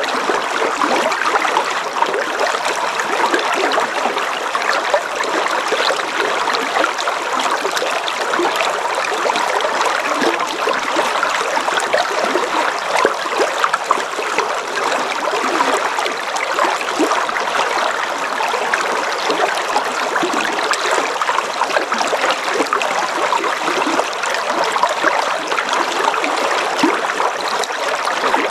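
River water flowing, a steady even rush with no breaks.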